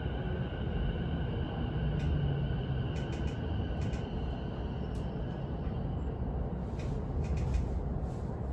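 Cabin noise of an electric commuter train slowing into a station: the steady rumble of wheels on rail, with a steady high electric whine that fades out about six seconds in. Scattered clicks come more thickly near the end as the train nears its stop.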